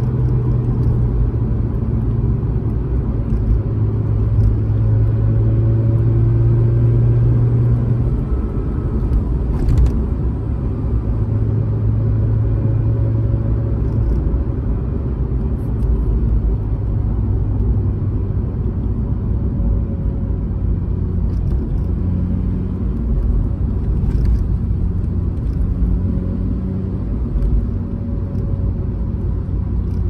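Mazda RX-8's twin-rotor rotary engine and road rumble inside the cabin while driving, the engine note stepping down and back up in pitch several times as it goes through gear changes. A couple of short clicks sound, about ten seconds in and again near the end.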